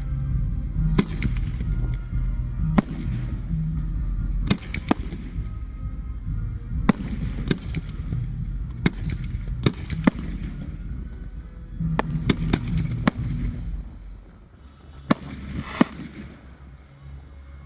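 Aerial fireworks going off in a show: about fourteen sharp bangs at uneven spacing, some in close pairs, over steady background music. The bangs and the music thin out and quieten near the end.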